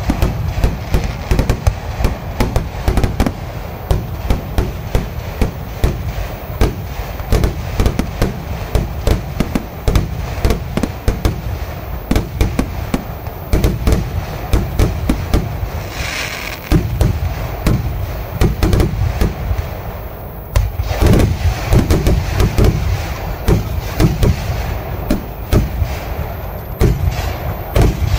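Fireworks display of a Kerala temple-festival vedikettu: a continuous barrage of bangs, several a second, with a brief hiss about halfway through and a short lull about two-thirds through, after which the bangs come heavier.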